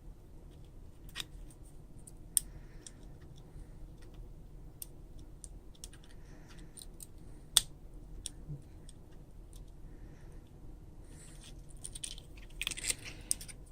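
Small tools and phone parts clicking and tapping against each other while an iPhone 5s is reassembled, with a few sharp clicks spread out and a quick run of clicks and scraping near the end.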